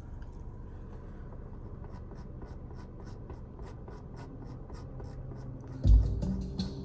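The opening of a song playing through a car audio system: a crisp high tick about four times a second over a low hum, then a heavy bass hit shortly before the end as the beat comes in.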